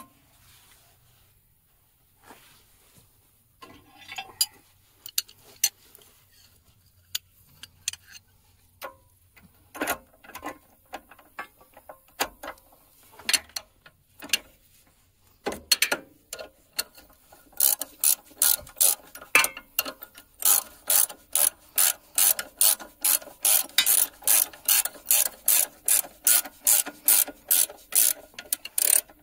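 Ratcheting box-end wrench clicking as a new hex bolt is run down on a dozer track tensioner. Scattered clicks at first, then from a little past halfway an even run of clicks at about three a second.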